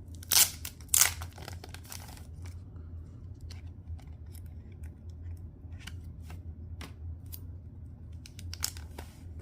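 Hockey card packaging being opened and handled by hand. There are two loud, sharp rips in the first second or so, followed by light crinkling and small scattered clicks as the cards are worked out. A few more sharp strokes come near the end.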